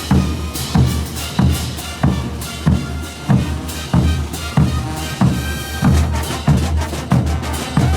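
Bolivian brass band playing a morenada: a steady, heavy drum beat of about three strokes every two seconds under sustained brass.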